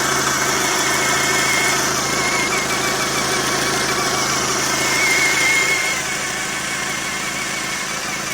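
Škoda Octavia engine idling with a high, slightly wavering whistle from somewhere under the hood, which weakens about six seconds in; the owner cannot tell where the whistle comes from.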